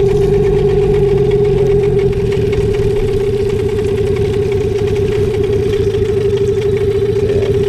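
Hidea 9.9 outboard motor idling steadily just after being started for the first time, a constant even hum with no change in speed.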